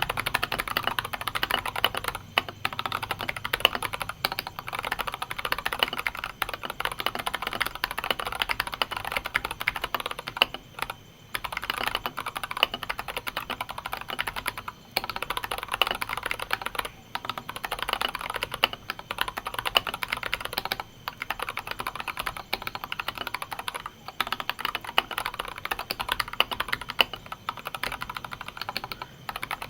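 Continuous fast typing on a 60% mechanical keyboard with Jelly Pink linear switches, a dense patter of keystrokes broken by a few short pauses. The keyboard is fairly noisy.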